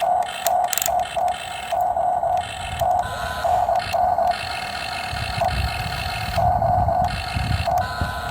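Electric motor and gearing of a Huina radio-controlled model excavator whining in short, repeated spurts, with a low rumbling noise joining in during the second half.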